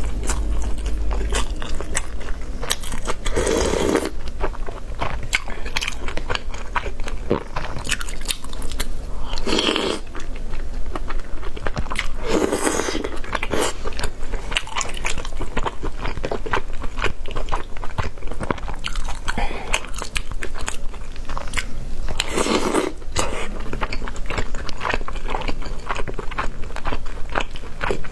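Close-miked chewing and wet mouth sounds of a person eating, with many small clicks throughout. Louder, drawn-out mouth sounds come four times, about 4, 10, 13 and 23 seconds in.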